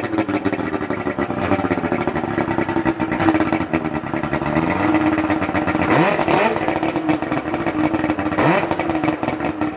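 Johnson 300 hp two-stroke V8 outboard engine with its cowling off, running steadily and blipped twice, about six and eight and a half seconds in, its pitch rising and falling each time.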